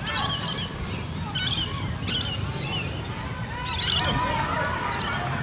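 Birds calling in short bursts of high chirps, three or four times, over a steady low rumble.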